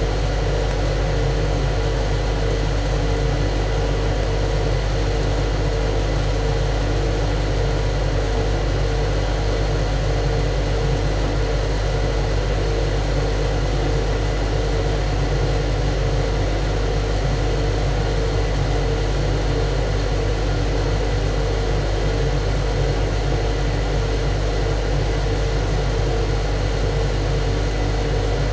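Ship's engine room machinery running with a loud, steady drone: a deep low rumble with a few constant hums above it, unchanging throughout.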